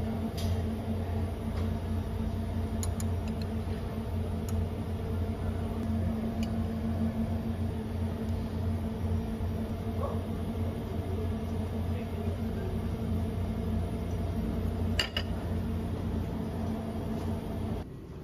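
Steady mechanical hum with a few light clinks of metal serving utensils against ceramic bowls and plates. The sharpest clink comes about fifteen seconds in, and the hum drops away suddenly near the end.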